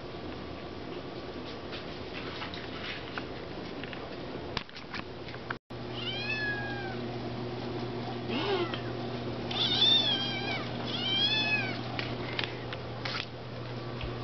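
Kitten meowing about four times, high meows that rise and fall in pitch, starting about six seconds in, as it begs for a treat.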